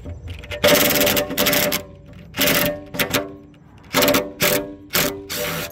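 DeWalt cordless impact driver hammering as it backs out a 10 mm fastener on the lift glass hinge: one long burst of about a second, then a string of six short bursts.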